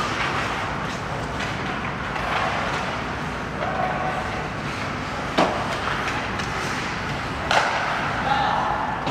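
Ice hockey play in an arena: a steady wash of skates on the ice and rink noise, broken by two sharp cracks of stick and puck impacts, about five and a half and seven and a half seconds in.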